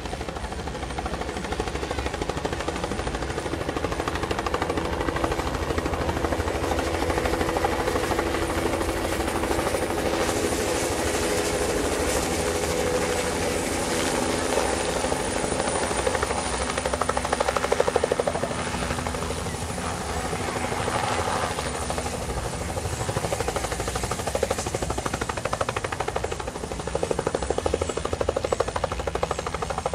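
Light helicopter flying low and then descending to land: a fast, steady chop of the main rotor blades over a whine from the engine.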